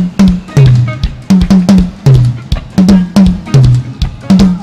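Soca band playing an instrumental groove: a hard-hitting drum beat, about three hits a second, under a repeating bass line of short higher notes followed by a longer low note.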